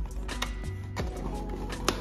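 Background music with a bass line and a beat.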